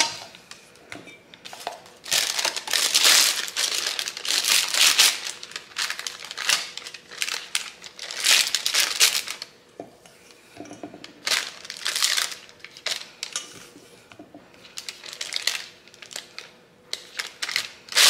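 Plastic piping bag crinkling and rustling in irregular bursts as it is fitted into a cup and filled with cookie dough.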